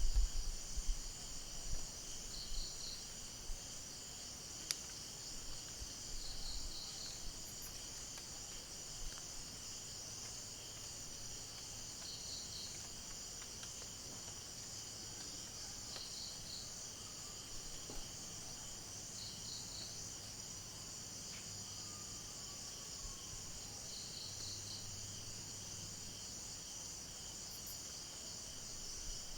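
Night ambience of a steady chorus of insects, with a short quick-pulsed chirp repeating about every three to four seconds over it. A few low bumps sound in the first seconds.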